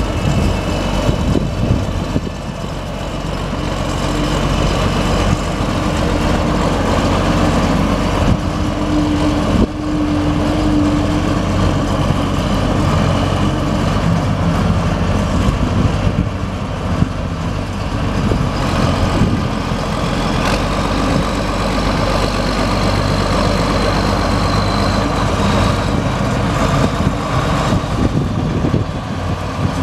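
International Harvester 3588 2+2 tractor's turbocharged six-cylinder diesel running steadily under way as the tractor turns and drives off. A thin high whine joins it about twenty seconds in.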